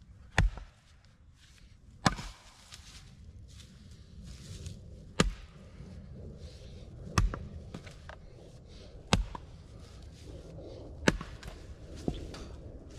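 Heavy axe striking and splitting wood, six sharp blows about two seconds apart.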